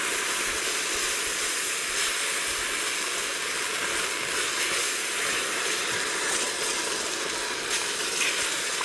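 Chicken broth poured from a carton into a pot of hot butter-and-flour roux, sizzling with a steady hiss as it steams.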